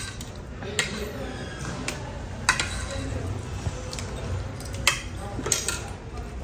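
Metal spoon and fork clinking and scraping on a ceramic dinner plate during a meal, a handful of sharp clinks at irregular spacing.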